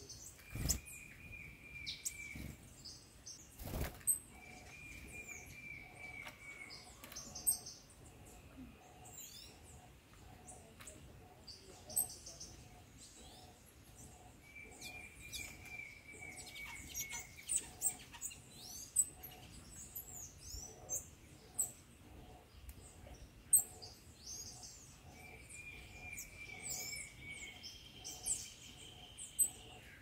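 Wild songbirds calling: a dry trill of about two seconds repeats four or five times among many brief high chirps. A soft low note pulses about twice a second from a few seconds in, and two sharp knocks come near the start.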